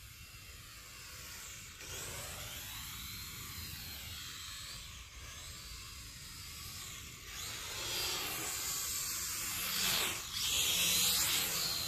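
Syma X5 quadcopter fitted with aftermarket propellers, its small motors and props whining in flight with the pitch sweeping up and down as the throttle changes. It gets louder about eight seconds in.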